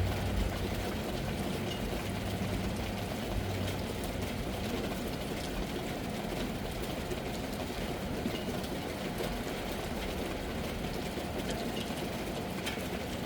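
Steady heavy rain, an even hiss of rainfall, with a low rumble of thunder dying away in the first few seconds.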